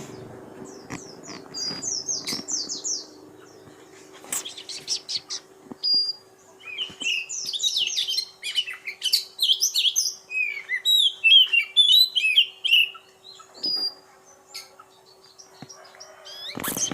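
Oriental magpie-robin of the kacer poci type singing: two long runs of quick, varied whistled and chattering notes, over a steady low hum.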